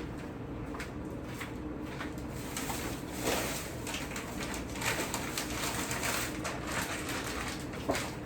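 Plastic grocery bags rustling and food packages being handled, from about two and a half seconds in, over a steady low hum.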